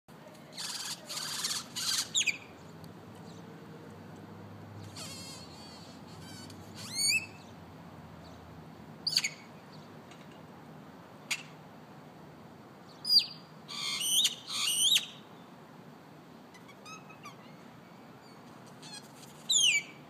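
A bird calling repeatedly, in bursts a few seconds apart: harsh, noisy calls mixed with loud whistled notes that slide sharply down in pitch.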